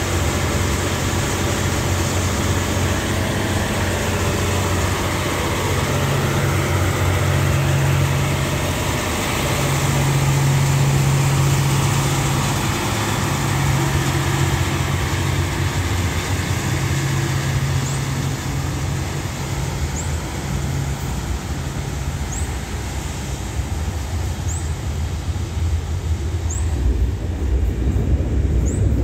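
A Kiha 183 diesel multiple unit pulling out, its diesel engines running with a strong low drone that swells and dips as it accelerates. Near the end a louder low rumble builds, with short high chirps about every two seconds.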